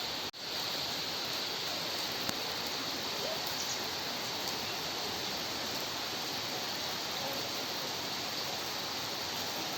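Steady hiss of rain falling, with a momentary drop-out just after the start.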